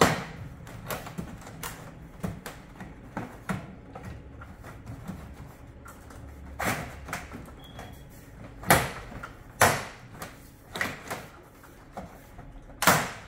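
Plastic outer ring of a Samsung 360 ceiling cassette being slid around its mount by hand: a string of knocks and clicks, with a few louder knocks in the second half.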